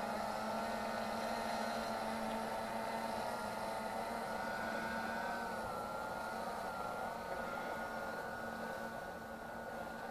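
DJI Phantom 3 quadcopter in flight, its propellers giving a steady whine whose pitch wavers slightly.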